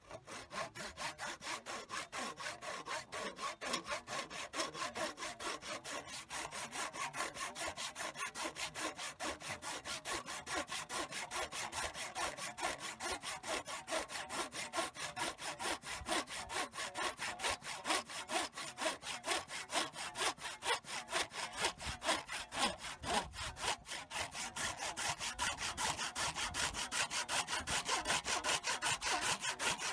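Hand sawing: a saw worked back and forth in a steady, even rhythm of strokes, a little brighter near the end.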